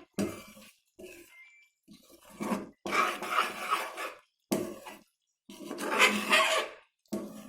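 A spoon scraping and stirring thick, boiling ginger-sugar syrup in a cooking pan, in uneven strokes with short pauses between them.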